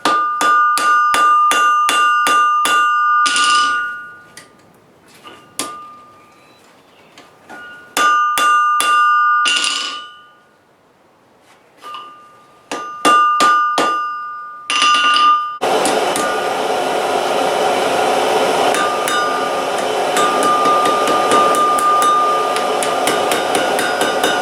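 Hand hammer striking hot steel on an anvil in three runs of quick, even blows, each blow leaving a bright metallic ring, with short pauses between the runs. About two-thirds of the way in, a steady rushing noise sets in and carries on.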